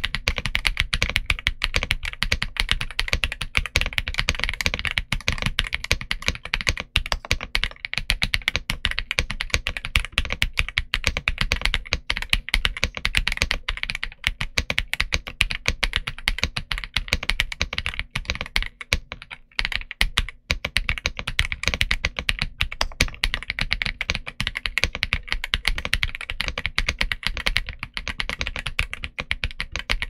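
Typing on an Ajazz AK870 TKL mechanical keyboard with Ajazz Maillard linear switches and PBT Cherry-profile keycaps: a fast, continuous stream of key strikes, with a brief lull a little past the middle.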